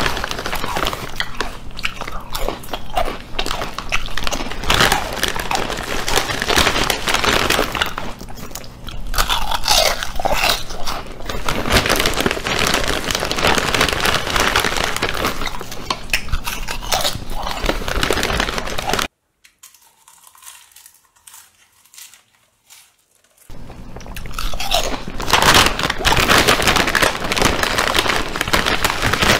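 Potato chips being bitten and chewed loudly close to the microphone: dense, crackly crunching that stops for about four seconds about two-thirds of the way through, then starts again.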